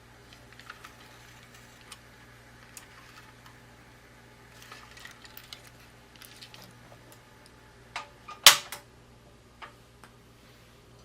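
Light kitchen handling clicks and taps, with one loud sharp clack about eight and a half seconds in, flanked by smaller knocks just before and after.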